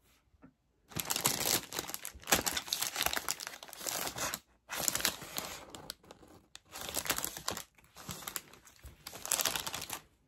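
Clear plastic bag crinkling as a styrofoam craft heart inside it is picked up and handled, in several spells with a few brief pauses.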